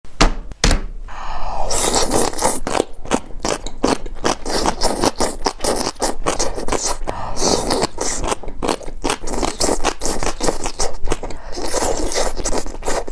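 Crunchy food being bitten and chewed: a rapid, irregular run of loud crackling crunches.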